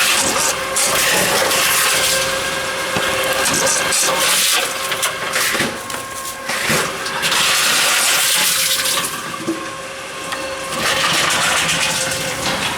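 Tomra reverse vending machine running, its shredder grinding deposited plastic bottles in harsh spells of a couple of seconds each, over a steady machine hum.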